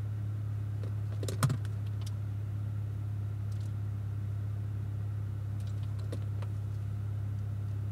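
Cadillac ATS-V's twin-turbo V6 idling at a standstill, a steady low drone heard from inside the cabin. A sharp click comes about a second and a half in, with a few faint clicks near six seconds.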